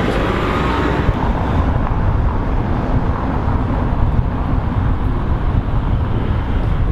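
Street ambience: steady road traffic noise.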